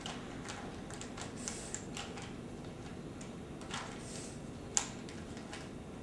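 A plastic Rubik's cube being turned by hand: a run of irregular small clicks as its layers snap round, with one sharper click about five seconds in.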